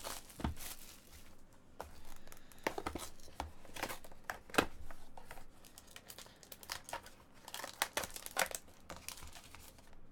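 Plastic shrink wrap crinkling and tearing as a Panini Pantheon football card box is unwrapped and opened by hand, with irregular sharp crackles and rustles of the wrap and cardboard.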